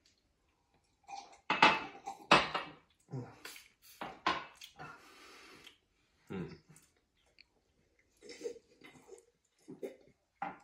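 Drinking glasses knocking down onto a hard kitchen countertop several times, with sips of milk between. The loudest knocks come in the first few seconds.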